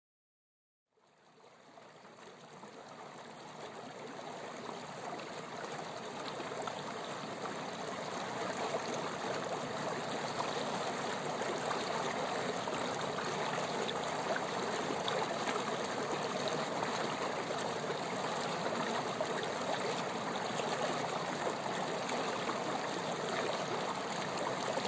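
Flowing stream water, a steady rushing that fades in from about a second in and swells over the next several seconds before holding level.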